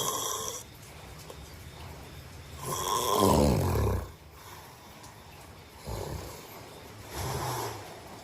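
A man snoring in his sleep: a run of snoring breaths, the loudest and longest about three seconds in, falling in pitch, then two shorter ones near the end.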